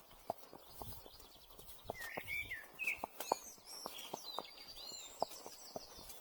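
An Arabian horse's hooves striking the ground at a walk, a steady run of single knocks. Birds chirp and call from about two seconds in.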